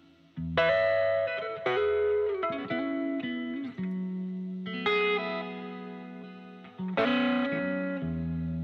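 Background music: a guitar playing plucked notes and chords that ring on, a new one every second or so.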